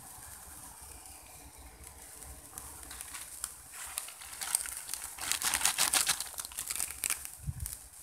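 Plastic instant-noodle packet crinkling as it is handled, starting about three seconds in and loudest in the second half.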